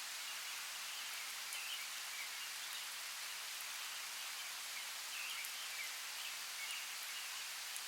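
Steady rainforest rain, an even hiss with scattered drips and a few faint short chirps now and then.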